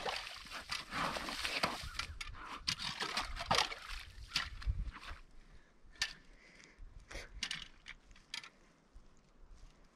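Wet, slushy pond ice being crunched and broken, with water sloshing: a close run of irregular crackles and crunches, then a few separate sharp crunches later on.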